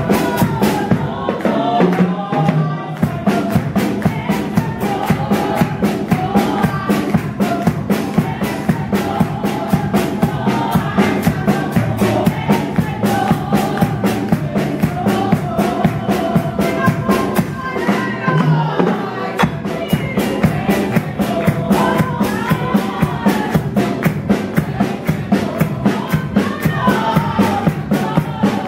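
Worship song: a woman singing a melody into a microphone with the congregation singing along, over a drum kit keeping a fast, steady beat.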